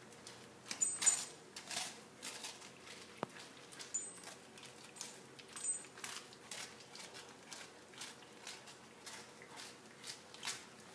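German shorthaired pointer gently mouthing and nibbling a slice of toast: a string of small, irregular crunches and clicks, a little louder about a second in.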